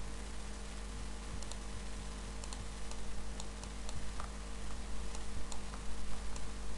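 Faint, irregular clicks of a computer mouse and its scroll wheel while zooming and panning, over a steady low hum.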